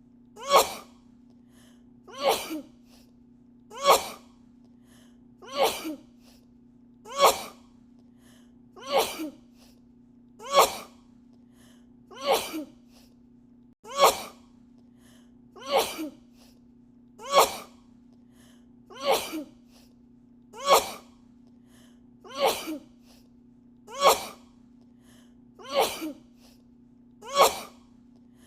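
A woman sneezing over and over, an edited loop of the same sneeze about every second and a half. Each sneeze is a sharp burst, often with a shorter second one right after. A faint steady hum runs underneath.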